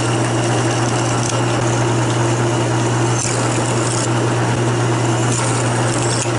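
Drill press motor running with a steady low hum while its bit drills holes through thin sheet-metal plate.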